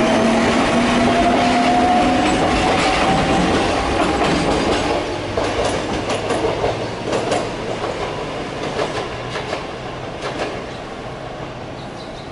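Wakayama Electric Railway 2270-series electric train pulling away, a whine rising steadily in pitch over the running noise for the first few seconds as it gains speed. Then a run of wheel clicks over rail joints and points, fading as the train recedes.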